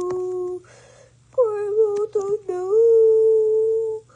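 A high voice humming a wordless tune in long held notes, with a short pause about a second in.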